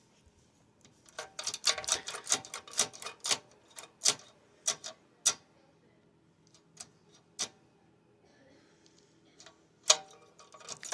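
A rapid run of sharp metallic clicks and clacks, then a few scattered single clicks, from a homemade mini-bike throttle lever and linkage being worked by hand, with the engine off. The throttle is acting up because its linkage is coming loose.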